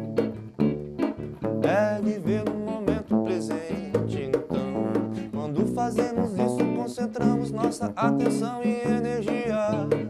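Live band music: a Stratocaster-style electric guitar plays a lead line with bent and wavering notes, over a bass line and drums.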